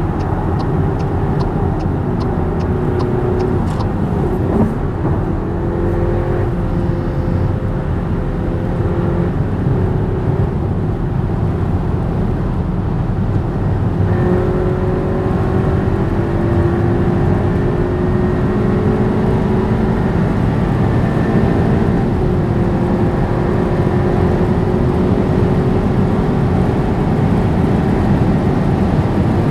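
Skoda Superb 4x4 driving at high autobahn speed: a steady engine drone over road and wind noise, with the engine note shifting a few times. A light, regular ticking in the first few seconds.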